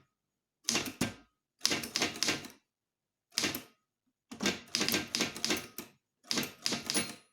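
Manual English typewriter keys being struck in five quick runs of sharp clacks with short pauses between them, typing the letter closing 'Yours faithfully'.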